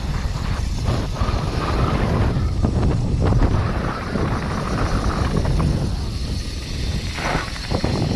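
Wind buffeting the microphone of a camera on a bike rolling fast down a gravel trail, with a steady low rumble from the tyres and short knocks and rattles as the bike goes over bumps.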